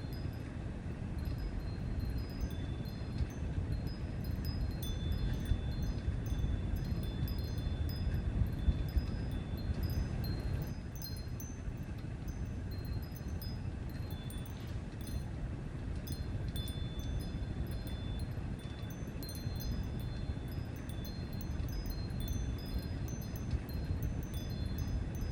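Steady low rumbling background noise, with high, clear notes at several fixed pitches ringing on and off over it, some brief and one held for several seconds.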